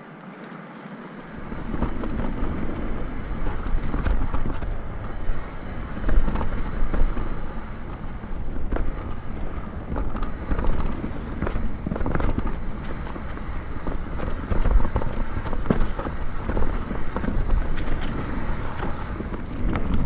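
Mountain bike descending a rough dirt trail: tyre rumble and wind on the microphone, with frequent knocks and rattles from the bike over the rough ground. The noise picks up sharply about a second and a half in.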